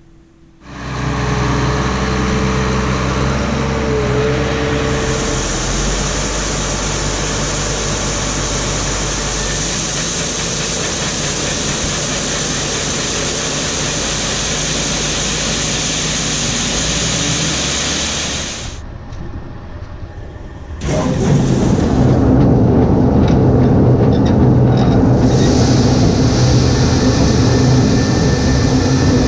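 Engines running steadily: one machine runs evenly for most of the first 18 seconds, then after a short dip a louder, rougher-running engine takes over about 21 seconds in.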